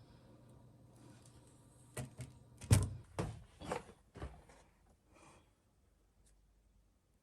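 A low steady hum that stops about three seconds in, overlapped by a quick cluster of five or six knocks and thumps, the loudest near the middle, as hard objects are handled and set down on a work surface.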